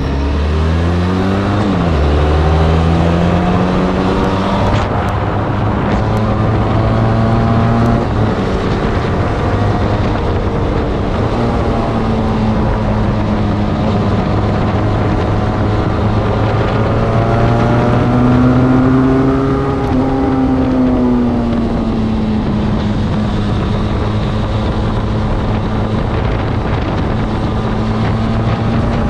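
Benelli TRK 502's parallel-twin engine through its stock exhaust, heard from the rider's seat: it accelerates through two gear changes in the first few seconds, then cruises steadily, with a brief rise and fall in revs about two-thirds of the way through. Wind rush runs underneath.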